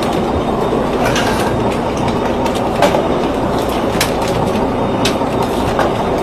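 Steady rumble and rush of a fishing boat running at sea, engine and water noise together, with a few sharp clicks now and then.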